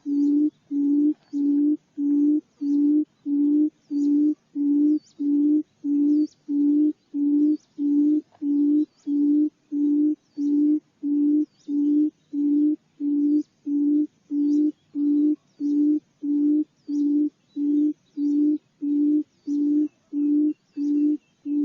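Small buttonquail's low hooting call, a steady unbroken series of short booming notes at about two a second, played as a lure call.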